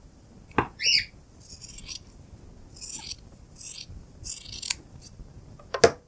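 Fabric scissors cutting through the seam allowance of minky fabric, with about four short snipping cuts. A short bird chirp comes about a second in, and near the end the scissors are set down on the table with a sharp clack.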